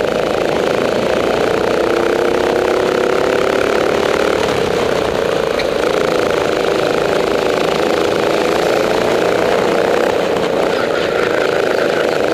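Rental kart engine running under racing load, heard close up from onboard, its pitch shifting slightly up and down with the throttle through the corners.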